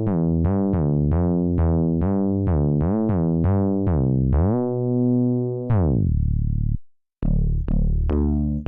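MES Mini 7 synthesizer playing a bass patch: a run of short plucked bass notes, about three a second, each starting bright and quickly closing down, then a longer held note and a falling sweep. After a brief silence about 7 seconds in, a different bass patch starts with its own run of notes.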